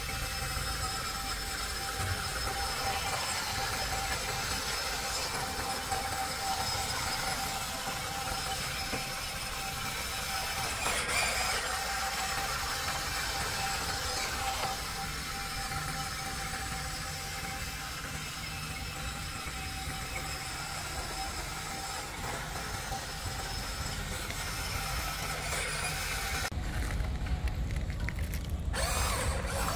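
Huina RC excavator's electric motors and gear drives running, a steady whir with a held whine over it. Near the end the sound changes abruptly, turning lower and duller.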